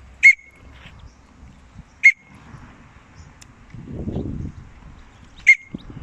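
A person whistling three short, sharp, identical calls to a budgie: one at the start, one about two seconds in, one near the end. A low rumble of wind on the microphone comes between the second and third.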